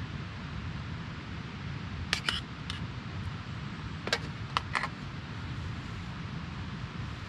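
A metal spoon clinks and scrapes against a small metal camping pot while filling is scooped out: a few sharp clinks about two seconds in and again around four to five seconds in, over a steady background hiss.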